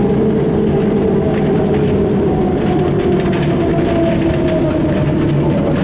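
Ikarus 260.50 city bus's diesel engine running under way, heard from inside the passenger cabin, with a whine that slowly drifts down in pitch over the middle seconds.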